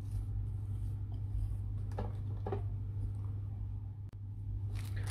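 A steady low hum under soft scraping as shortbread dough is scraped from a glass bowl and pressed into a parchment-lined tin with a plastic spatula, two faint scrapes standing out about two seconds in and a light rustle near the end.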